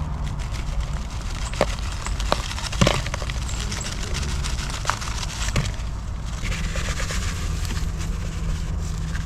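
Steady low hum with scattered small clicks and crackles as Sure Gel binder is added to ground venison and worked in.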